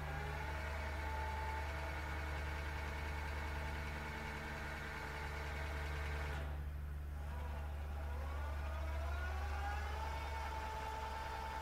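Metex BF30 Vario mill-drill's brushless spindle motor and geared head running in threading mode: a whine that rises as the spindle speeds up, dies away about six and a half seconds in as the spindle stops and reverses, then winds back up to a steady whine.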